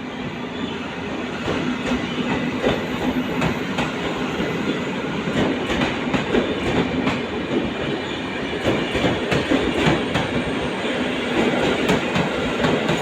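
A train running past, its wheels clicking irregularly over rail joints amid a steady rumble.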